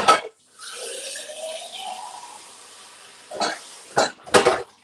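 Kitchen sink tap running for a few seconds, with a faint rising tone in the water noise, framed by sharp clatters of crockery being handled at the sink: one at the start and three close together near the end.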